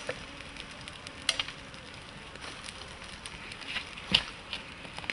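Open wood fire crackling as meat roasts over it: a steady hiss with scattered sharp pops, two of them louder, about a second in and near the end.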